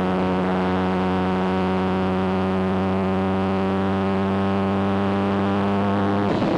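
Motorcycle engine droning at a steady, unchanging pitch as if cruising at constant speed. Near the end it cuts off abruptly and gives way to rushing wind on the microphone.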